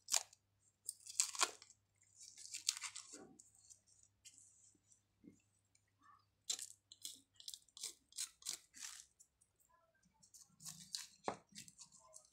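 Plastic cling film being peeled, torn and cut off a wrapped slate piece, crinkling and crackling in irregular bursts, with a run of short sharp crackles in the middle.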